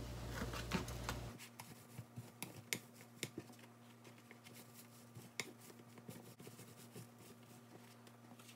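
Faint, scattered light clicks and taps of a long chopstick and fingers handling sheets of deep-fried tofu on a plastic cutting board, as the chopstick is rolled over them to loosen the insides into pouches.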